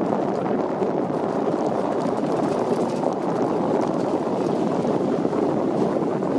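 Steady rumbling noise of travel over a wet gravel road, with small crackles of gravel.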